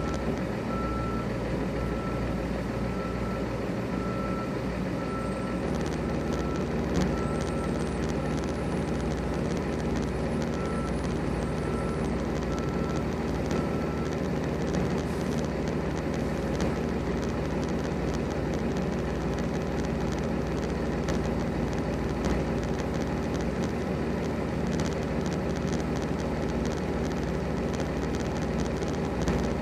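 Vehicle backup alarm beeping about once a second, stopping about halfway through, over the steady idle of heavy diesel trucks.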